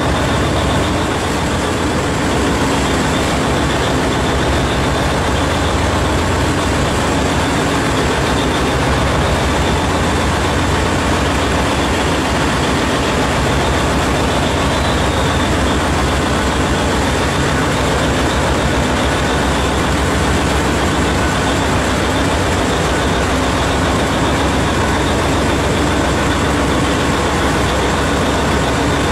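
Heavy surface-mining machinery working: a steady, dense mechanical roar over a strong low hum.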